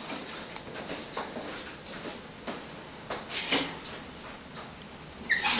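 Footsteps and a few scattered light knocks as a man walks down a greenhouse aisle to the system's control. Right at the end a steady hiss starts suddenly: the suspended high-pressure fogging nozzles coming on.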